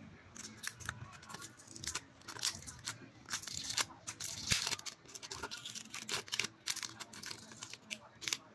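Dense, irregular clicks, snaps and scraping as the cracked LCD of an Oppo A15s phone is pried and peeled off the phone's frame by hand, loudest about four seconds in.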